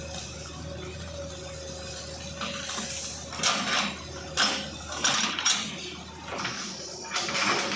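Excavator engine running steadily, with irregular sharp clanks and cracks from about two and a half seconds in.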